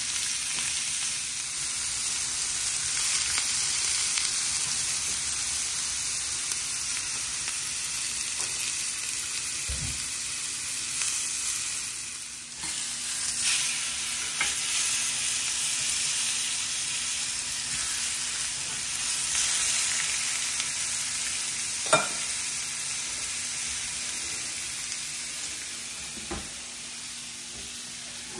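Lamb chops searing in a hot cast-iron grill pan: a steady, high sizzle. A few clacks of metal tongs against the pan as the chops are turned, the sharpest about 22 seconds in, and the sizzle eases slightly near the end.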